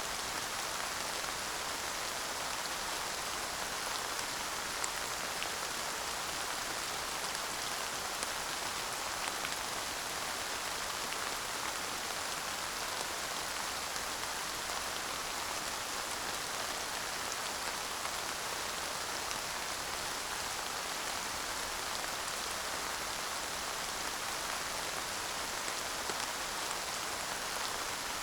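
Steady light rain falling, an even patter with a few distinct drops ticking now and then, and no thunder.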